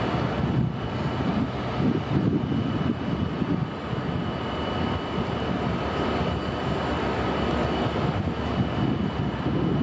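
Diesel locomotives of an approaching Union Pacific freight train running with a steady low rumble, with a faint steady high whine over it.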